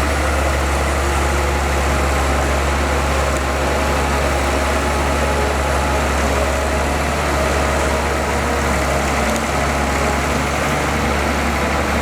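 Bulldozer's heavy diesel engine running steadily, with a deep, constant low hum.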